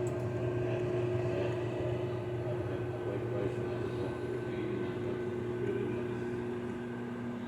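Kenmore microwave oven running on a cook cycle: a steady electrical hum with a constant tone, the pitch of its drone shifting slightly near the end.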